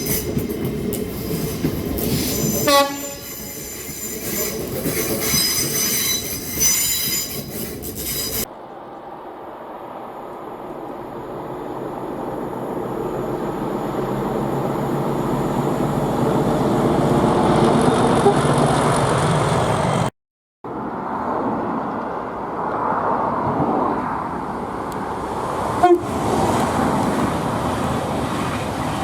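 Trains in several short recordings cut together, with train horns and high-pitched wheel squeal. The first cut ends abruptly about eight seconds in. In the next a train grows steadily louder for about ten seconds. That cut ends in a brief dropout, and the last cut is more train noise with one sharp click near the end.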